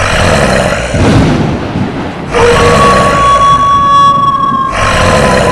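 Ghost horror sound effect: a loud rumbling, hissing din. It eases briefly before two seconds in, and from about two and a half seconds an eerie held tone rings over it, sinking slightly in pitch near the end.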